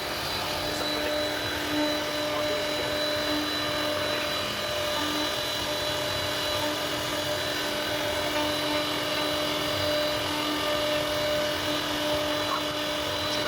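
CNC router spindle running steadily with a constant whine as it carves wood.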